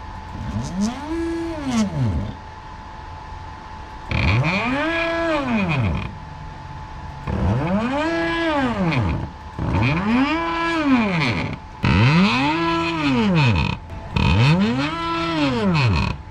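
A stepper motor driven by a CNC shield running Grbl makes repeated moves, about six of them. Each move is a whine that rises in pitch as the motor speeds up and falls as it slows to a stop. A faint steady whine runs underneath.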